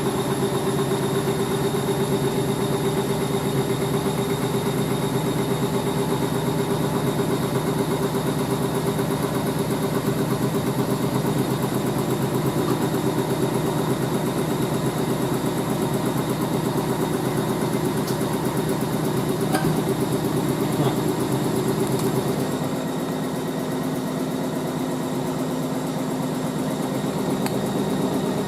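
Hoover A3060 washing machine spinning, its motor and drum giving a steady hum with a few fixed tones. About three-quarters of the way through, the hum drops a little and its deepest part fades.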